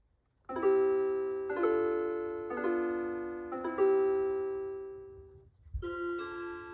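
Casio ICH3050J chime wall clock playing its chime: four ringing notes about a second apart, each fading slowly, then a soft low knock and the next phrase beginning near the end.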